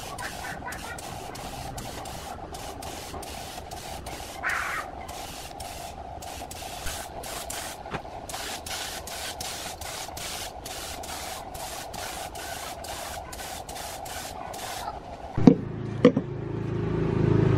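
Compressed-air spray gun spraying paint: a steady hum under hiss that pulses many times. Near the end it stops, and two sharp knocks are followed by a low whirring that grows louder.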